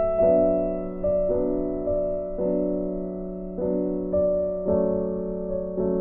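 Background music: a slow melody of single notes struck about once a second, each ringing and fading, over a held low note.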